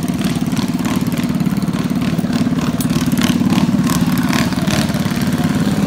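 Small single-cylinder minibike engine running steadily at a fast idle, with scattered light clicks and knocks over it.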